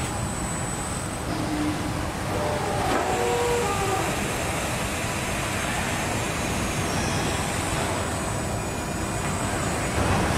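Steady machine noise of an automated car-body line worked by industrial robot arms: a constant rumble and hiss, with a few brief whining tones at different pitches about two to four seconds in.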